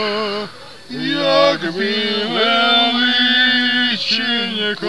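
Group singing of a folk song, with long drawn-out held notes. A short break for breath comes about half a second in, then the voices come back in.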